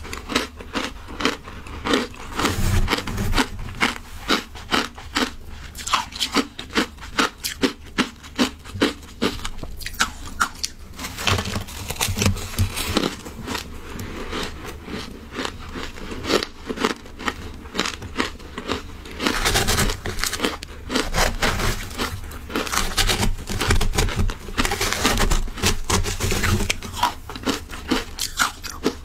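Close-miked crunching and chewing of shaved ice, mixed with a metal spoon scraping and digging into the icy mound in a plastic tub. Many sharp crunches come in quick succession, thickest in two stretches in the second half.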